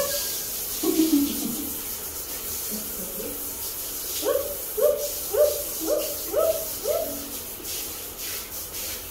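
Shower water spraying with a steady hiss, with a run of six short falling voice-like notes, about two a second, a little past the middle.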